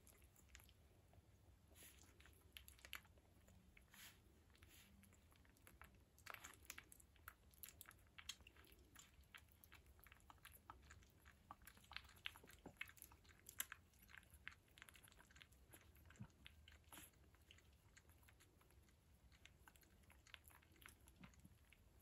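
Faint, irregular wet clicks and smacking from the mouths of nine-day-old Wire Fox Terrier puppies, thickest for several seconds in the middle, over a quiet low hum.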